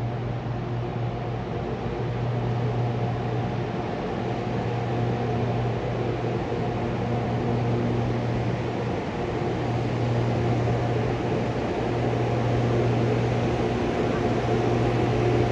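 Class 92 electric locomotive drawing slowly into the platform: a steady electric hum with one strong low tone and several fainter higher ones, growing slightly louder as it nears.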